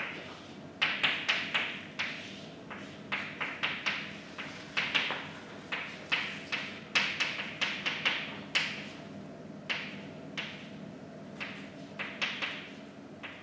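Chalk writing on a blackboard: irregular clusters of sharp taps and short scratchy strokes as symbols are written, with brief pauses between groups.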